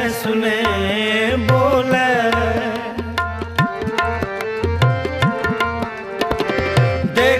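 Background music: an Indian folk song with hand-drum accompaniment. A wavering melody leads at first, and from about three seconds in a quick run of drum strokes takes over.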